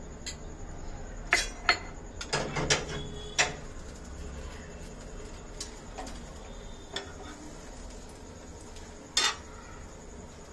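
Metal spatula and utensils clinking and knocking against a nonstick frying pan and a plate while a filled crepe is folded: a cluster of sharp clinks in the first few seconds, then one louder knock near the end.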